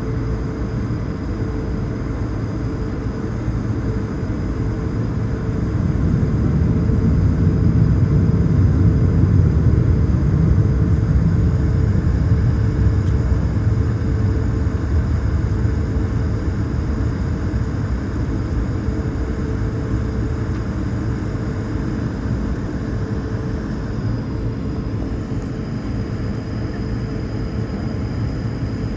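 Jet airliner cabin noise while taxiing: a steady engine hum with a faint high whine over it, and a low rumble that swells about six seconds in and slowly eases off.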